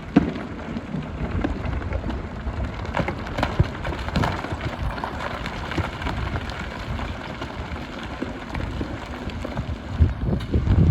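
Hyundai HX300 excavator working aggregate: a low diesel engine rumble under a continuous rattle and scrape of gravel and stones, with many scattered knocks. A sharp knock comes just after the start, and the knocks grow louder near the end.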